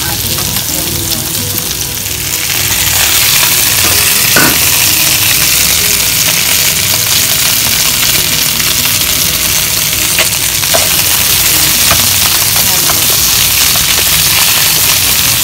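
Pork, potato, carrot and onion chunks sizzling in hot oil in a frying pan, with a steady hiss that grows louder about two and a half seconds in. A few sharp clicks from a spatula knocking the pan as the pieces are stirred.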